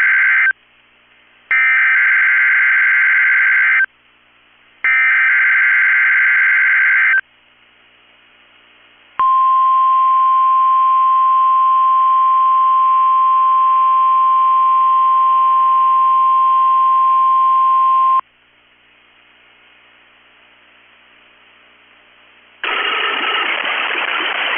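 NOAA Weather Radio Required Weekly Test signal. The tail of one Emergency Alert System header burst and two more full bursts of harsh, buzzy data screech are heard, each about two seconds long with short gaps between. These are followed by the steady 1050 Hz weather radio warning alarm tone, held for about nine seconds. After a few seconds of faint hiss, a loud rushing noise starts near the end.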